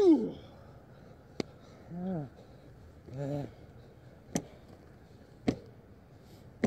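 Young men's grunts and short yells during backyard wrestling, the loudest a yell falling in pitch right at the start, then two brief grunts. Four sharp smacks are spread through the rest.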